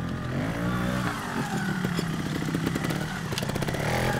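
Small two-stroke trials motorcycle engine revving up and down as the bike is ridden over rocks, its pitch rising and falling with the throttle.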